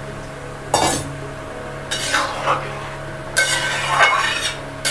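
A spatula scraping and knocking against a metal cooking pot as a potato and parwal curry in gravy is stirred and the potato pieces are broken up. The strokes come in separate scrapes, the first sharp knock about a second in and a cluster of scrapes in the second half.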